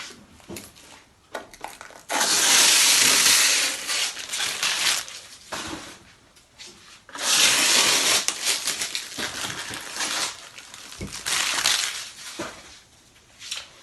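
Plastic protective film being peeled and crinkled off a cutting machine: two long, loud stretches of rustling, with small handling clicks in between.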